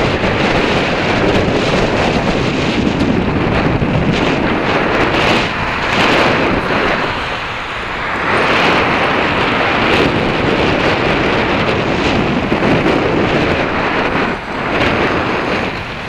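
Wind rushing over the microphone of a camera carried on a moving electric bike, a dense steady noise that eases briefly about halfway through.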